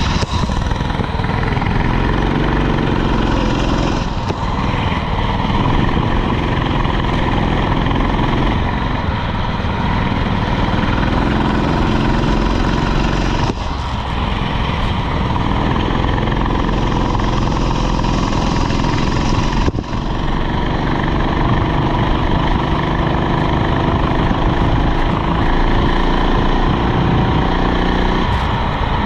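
Rental go-kart's small engine running hard, its revs rising and falling several times as the kart laps, over a steady noisy hiss.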